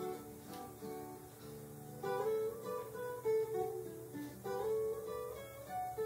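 Background music played on a plucked acoustic guitar, a run of held notes that change every second or so.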